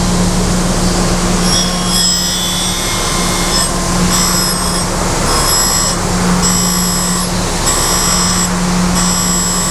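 Surface grinder running, its spindle giving a steady low hum, while the abrasive wheel grinds the edge of a steel part in repeated bursts of high-pitched ringing hiss, about one every second and a half as the table carries the part under the wheel: a light clean-up pass.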